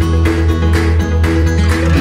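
Background music: strummed acoustic guitar over a steady bass line, with a regular beat about twice a second.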